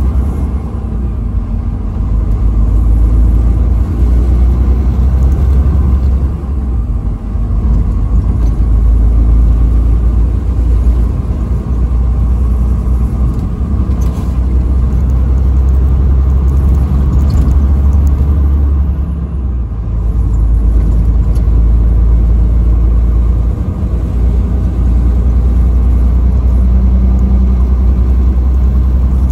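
Truck driving at highway speed: a steady low engine and road rumble, easing off briefly about 7 seconds and 20 seconds in.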